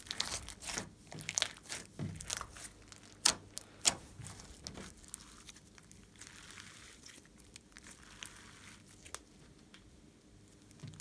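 Hands squeezing and kneading thick fluffy slime: a quick run of sharp, crackling pops over the first few seconds, then a softer hissing stretch, with a few scattered pops near the end.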